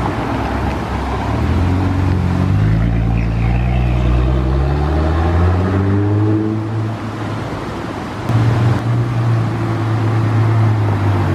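Nissan GT-R R35 twin-turbo V6 engines as the cars pull away one after another: one accelerates past with its engine note climbing for a few seconds. About eight seconds in, a second GT-R comes close, suddenly louder with a steady engine note.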